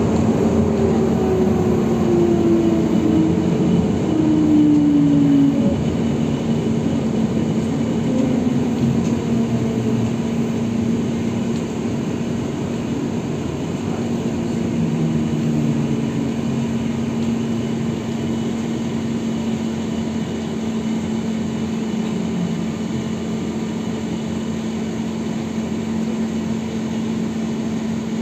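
Cabin noise of a ZiU-682B trolleybus in motion: a steady electrical hum over road and rolling noise. The traction motor's whine falls in pitch over the first five seconds, and shorter whines come and go later.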